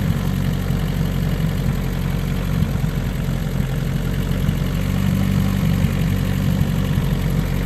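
Turbocharged Chevy Cruze 1.8 four-cylinder engine idling steadily on its own, with the throttle untouched, shortly after a cold start.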